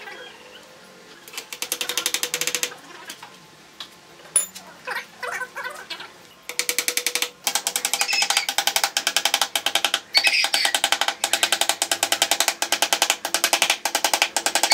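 Claw hammer driving nails through split-bamboo slats into a wooden frame: scattered taps in the first half, then fast, steady hammering from about halfway, several blows a second, each with a short ring.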